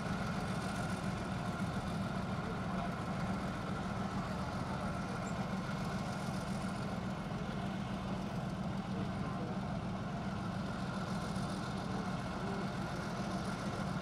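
Heavy military diesel engines running steadily at low revs: a constant low drone that holds the same pitch and level throughout.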